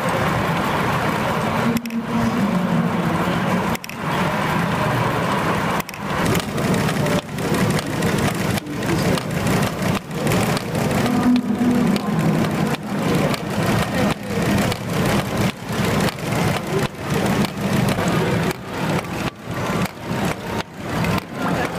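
Live-steam model engines running, with the clatter of the belt-driven toy machinery they power. A quick, even beat of clicks over a steady hum, growing denser in the later part.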